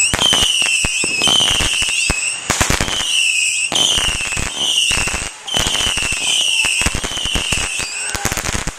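Consumer fireworks going off: a run of falling whistles, one every half second or so, mixed with sharp crackling pops, ending in a quick flurry of cracks near the end.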